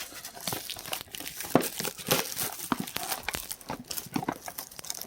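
Packaging being handled and opened: crinkling and rustling with scattered light clicks and taps.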